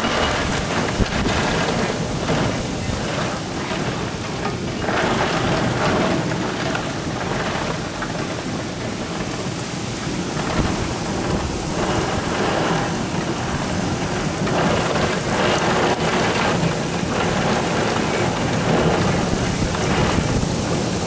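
Heavy thunderstorm downpour: a continuous hiss of rain that swells and eases in waves every few seconds.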